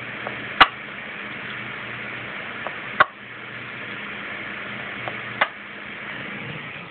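VHF radio's speaker hissing with steady static while it receives a signal, broken by three sharp clicks about two and a half seconds apart.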